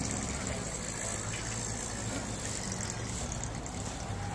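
A vehicle engine idling steadily, a low, even hum.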